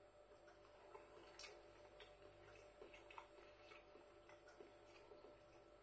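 Near silence: faint room hum with scattered soft, irregular clicks.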